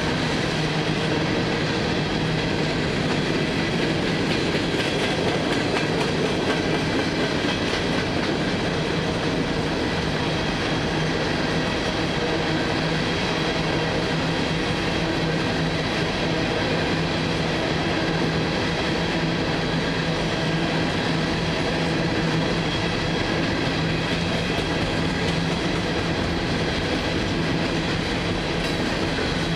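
Freight train cars rolling steadily past on the rails, a continuous sound that holds even throughout.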